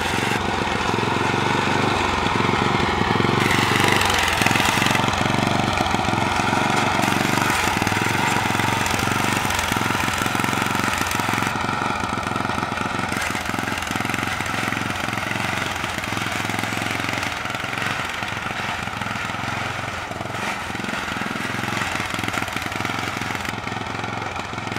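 Small riding-mower engine running steadily as the converted mower is driven on pavement, with rapid even firing pulses; it gets gradually quieter over the second half as it moves away.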